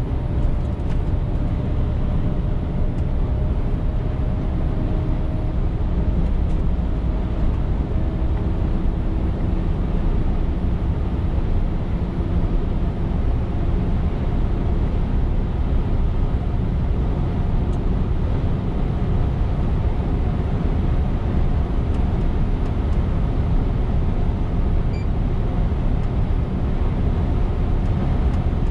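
Scania R410 truck's six-cylinder diesel engine running steadily on the road while pulling a loaded tanker, over a constant low rumble of road and tyre noise.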